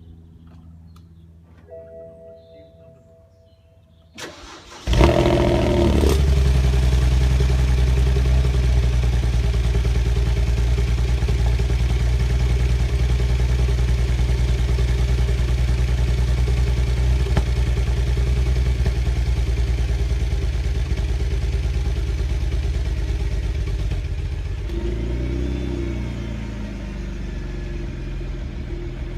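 BMW Z4 35i's twin-turbo straight-six cranking briefly and catching about five seconds in, then running at a steady fast cold idle that drops lower near the end. A cold start of an engine whose injectors leak fuel into the cylinders at rest, causing a poor start and a cold misfire.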